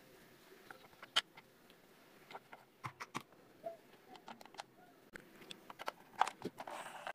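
Faint, scattered clicks and taps of plastic toy parts being handled, and small screws being driven into a plastic toy car body with a screwdriver. The sharpest click comes about a second in.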